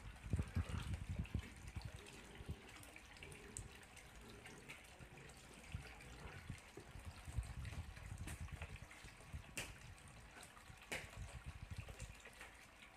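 Faint steady trickle of water from a small clay-pot garden fountain, with low bumps in the first couple of seconds and two sharp clicks later on.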